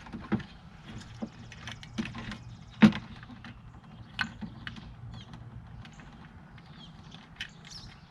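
Plastic headlight bulb connectors being worked loose by hand: scattered light clicks and rattles, with one sharp snap about three seconds in, over a faint low hum.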